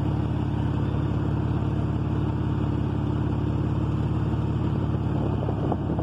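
Car engine idling steadily, with an even low pulsing.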